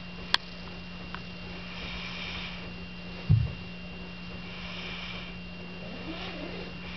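A sleeping man snoring, two long noisy breaths about three seconds apart, over a steady electrical hum. A sharp click comes just after the start and a low thump a little past three seconds in.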